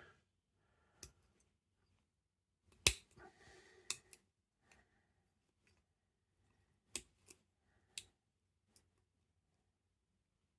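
Sparse small metallic clicks and taps from a tensioner and pick working the levers of a 5-lever ERA Insurance lever lock, the loudest about three seconds in. The lock's levers are gunked with old grease and sticky, so they give little clear feedback.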